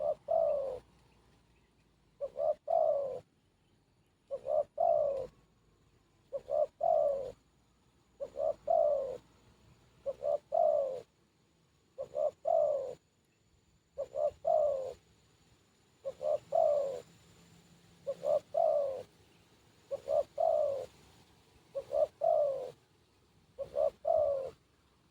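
Spotted dove cooing: the same short phrase, a couple of quick notes and a longer falling coo, repeated steadily about every two seconds.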